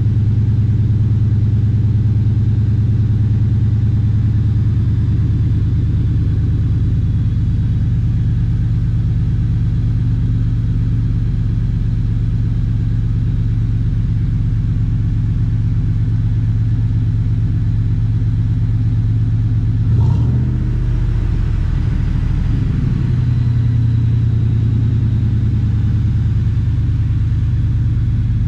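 Factory Five MK III Cobra replica's V8 engine idling steadily and fast just after a cold start, with the tachometer near 1,500 rpm. About two-thirds of the way through there is a brief click, and the engine note wavers for a couple of seconds before it settles again.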